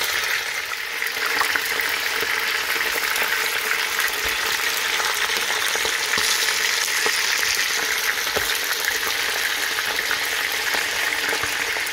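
Pieces of rabbit frying in hot extra virgin olive oil in a large pot: a steady sizzling hiss with scattered small crackles as the meat browns on its second side.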